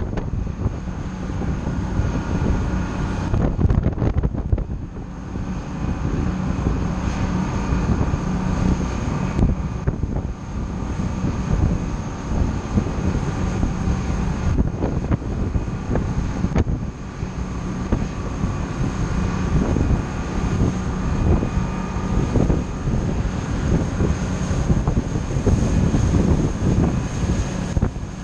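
A boat's engines drone steadily while under way, with wind buffeting the microphone and the rush of the wake behind the stern.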